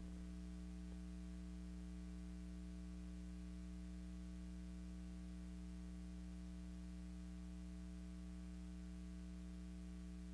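Steady electrical mains hum with a faint hiss: transfer noise on the soundtrack of a silent film, with no sound from the scene itself.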